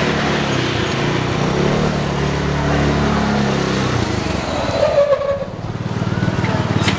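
A motor vehicle engine running with a steady low hum, which breaks off about four seconds in and picks up again a second or so later.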